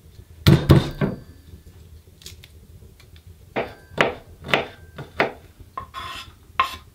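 Kitchen knife chopping garlic and mushrooms on a wooden cutting board: irregular sharp knocks in two bunches. Near the end, a few ringing clanks of a pan handled on the woodstove.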